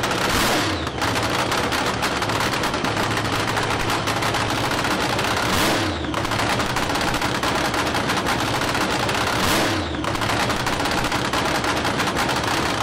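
Nitromethane-burning funny car engine running with a rapid, hard crackle. It is revved briefly three times, each rev climbing and then dropping back.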